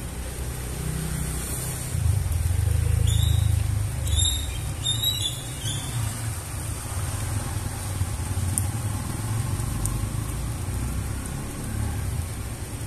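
Steady rain falling on wet concrete, with the low rumble of a motor vehicle passing nearby that swells about two seconds in and fades after about six seconds.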